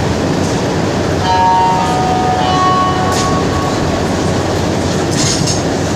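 Montreal metro car standing at a station: a steady hum and rumble inside the car, with a few steady tones held together from about a second in to about four seconds in.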